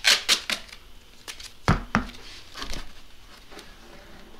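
Cardboard being tucked, crinkled and scraped against a steel wheel rim as paint masking: sharp rustles at the start, two loud knocks a little under two seconds in, then softer handling sounds.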